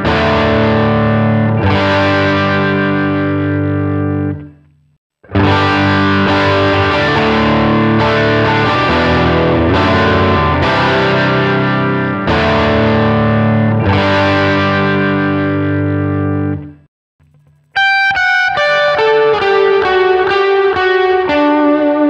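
Electric guitar played through Line 6 amp-modeler presets: distorted, sustained strummed chords that cut out briefly about five seconds in, resume, and stop again around seventeen seconds. After that come cleaner single picked notes, each ringing over the next.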